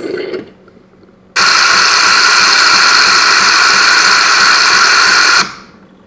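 Saeco Royal OTC's cappuccinatore frothing milk: a loud, steady hiss of steam drawing milk and air through the frother. It starts suddenly about a second and a half in and cuts off suddenly about four seconds later.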